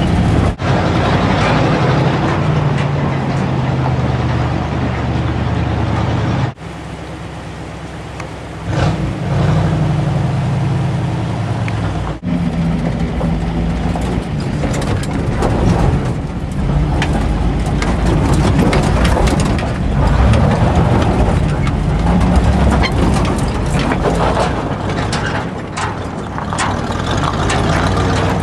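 A 1950s Ford 4x4 pickup driving slowly up a rough gravel mountain track, heard from inside the cab: a steady low engine hum with many small clicks and rattles from the cab and gravel. The sound drops away sharply about a quarter of the way in and picks up again a couple of seconds later.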